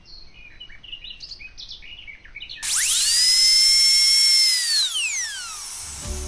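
Faint birds chirping, then about two and a half seconds in a dentist's high-speed drill whines up to a steady high pitch, runs for about two seconds and winds back down.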